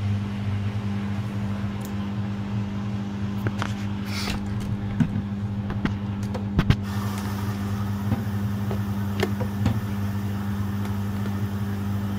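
Washing machines starting a cycle: a steady low electrical hum, with a few sharp clicks in the middle.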